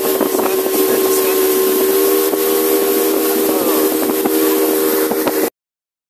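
Motorboat engine running steadily at cruising speed, a steady whine with a rushing hiss over it; the sound cuts off suddenly near the end.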